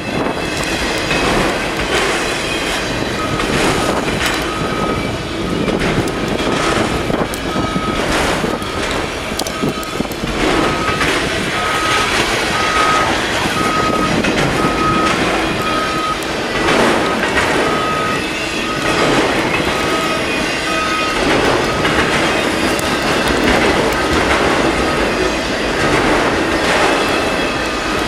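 Freight cars of a long manifest train rolling past, with steel wheels clacking over the rail joints and a steady rumble. From a few seconds in until about three quarters of the way through, a short high beep repeats about one and a half times a second.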